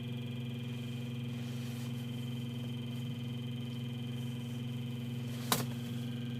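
A BMW's replacement car radio putting out a steady electronic hum of several held tones instead of a station, the fault its owner is trying to show. A single sharp click about five and a half seconds in.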